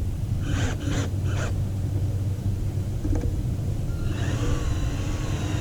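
Cordless drill driving a screw through the skimmer face plate and pool liner: short bursts about a second in, then a longer run with a whine in the second half, over a steady low rumble.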